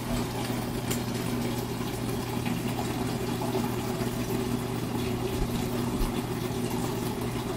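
Aquarium water pump running with a steady electric hum over a low hiss of moving water.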